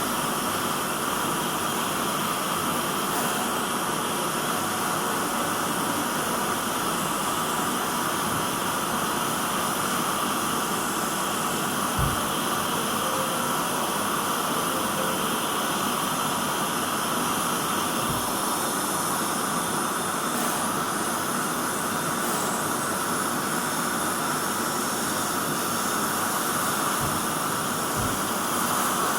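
Dental suction hissing steadily, with a few faint low knocks.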